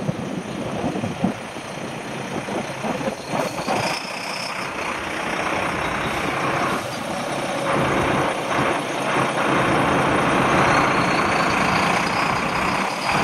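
Street traffic led by a tour coach's diesel engine running close by, with a steady rush of road noise.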